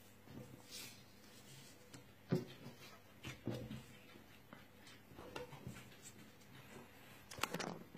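Faint rustling and soft taps of black cardstock strips being handled and fitted together on a cloth-covered table, with a few light knocks, the clearest about two and a half seconds in and near the end.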